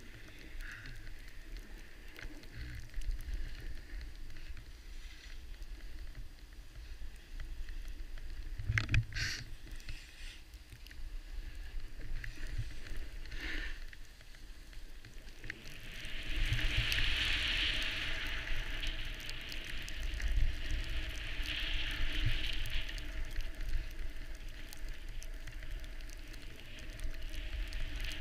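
Wind rumbling on the microphone while gliding downhill over snow, with the hiss of snow scraping under the runners growing louder from about halfway through. Two brief knocks come in the first half.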